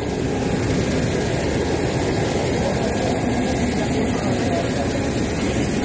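Airport engine noise: a steady, even engine sound that swells in and then holds level, with a thin high whine running above it.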